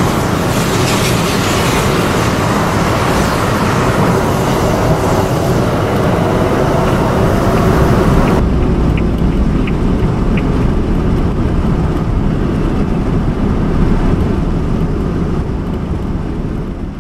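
Road noise of a moving car heard from inside the cabin: a steady low rumble with hiss. About eight seconds in the hiss drops away abruptly, leaving a duller rumble that fades near the end.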